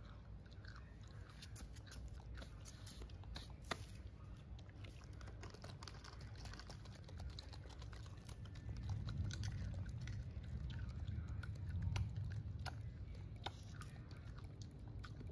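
Soft, scattered small clicks and smacks of a baby macaque mouthing and chewing at its hand and shirt. A low rumble comes in about nine seconds in and is the loudest part.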